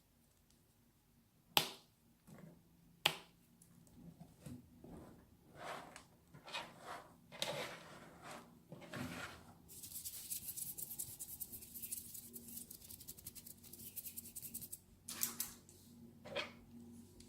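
Close-miked ASMR handling sounds: a few sharp taps, soft scratchy strokes, then about five seconds of fast, fine crackling scratching, and two more sharp taps near the end.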